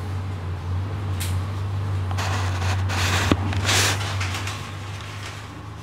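Dark ambient drone from a film score: a steady low hum with several swelling bursts of hiss and a sharp click a little past the middle. It grows quieter over the last couple of seconds.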